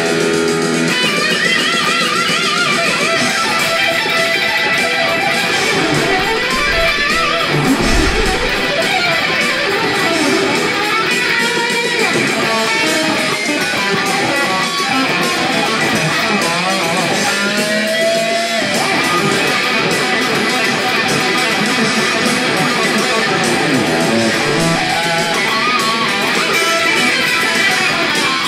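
Electric guitar lead solo played on a Les Paul Custom-style guitar, a fast run of single notes with string bends and wide vibrato, continuous throughout.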